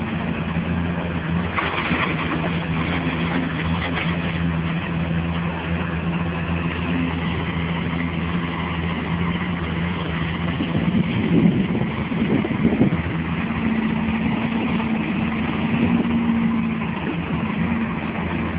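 Engine of a heavy construction machine running steadily with a low hum, getting louder and rougher for a couple of seconds about eleven seconds in.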